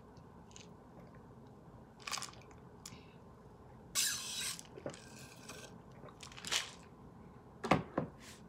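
Drinking from a plastic tumbler: a few short, noisy sips, the loudest and longest about four seconds in, then two quick low knocks near the end.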